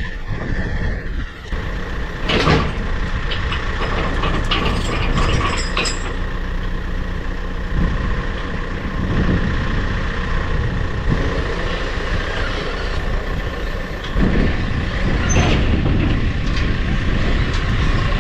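An engine running steadily with a high steady whine, and metallic clanks and rattles, loudest about two and a half seconds in and again after about fourteen seconds.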